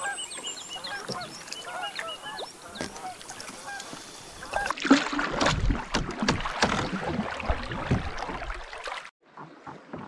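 Many short, repeated bird calls, like a group of waterfowl calling. About halfway through the sound changes abruptly to louder, irregular knocks and splashy noise of canoe paddling, which cuts out briefly near the end.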